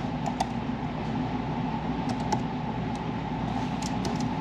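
Steady low mechanical hum with a handful of scattered computer keyboard and mouse clicks.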